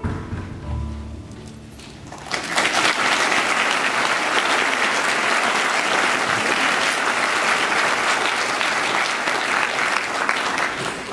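A choir's last notes die away, then audience applause breaks out about two seconds in, holds steady, and starts to die down near the end.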